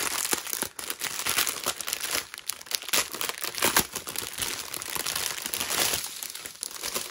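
Clear plastic packaging of diamond painting drill bags crinkling as it is handled and turned over, a steady run of small crackles.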